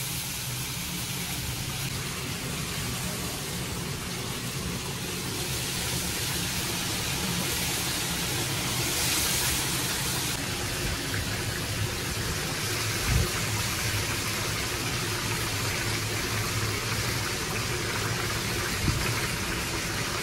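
Water being poured into a hot kazan of fried meat and onions for plov: a steady rush and hiss of water over a steady low hum, with two short knocks, one about two-thirds of the way through and one near the end.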